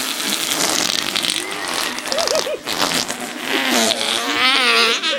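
A person making an imitation fart sound: a long sputtering, spluttering noise that turns into a wavering buzz near the end.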